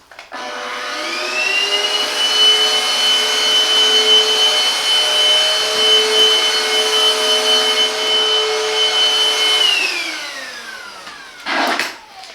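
Silvercrest cordless cyclone handheld vacuum cleaner switched on, its motor whine rising to a steady high pitch. It runs for about eight seconds, is switched off, and winds down with a falling whine.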